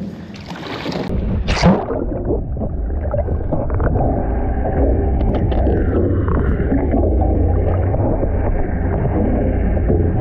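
A short splash-like rush about a second and a half in, then a steady, muffled low rumble of water and boat, with gurgling and the high end cut off.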